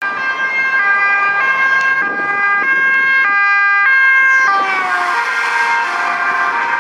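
Dutch police car's two-tone siren alternating between a high and a low note about every 0.6 s as the car approaches. About four and a half seconds in it passes and the pitch slides down, the notes lower and blurred as it drives away.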